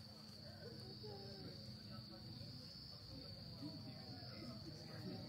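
Crickets trilling steadily at night in a high, unbroken chorus, over a low steady hum and a faint murmur of distant voices.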